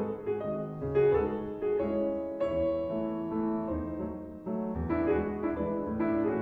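Background piano music: notes struck about every half second over low held bass notes.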